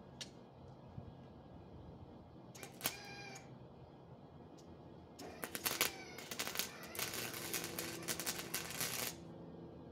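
Wire-feed (MIG) welder arc: a brief sputtering strike about three seconds in, then from about five seconds a crackling, sputtering arc for some four seconds that stops suddenly near the end.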